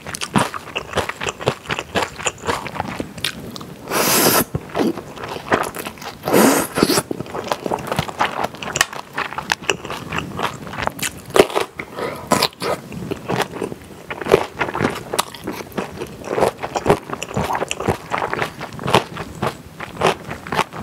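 Close-miked eating: two long noodle slurps, about four and six seconds in, amid steady wet chewing with many small clicks and crunches of kimchi being bitten and chewed.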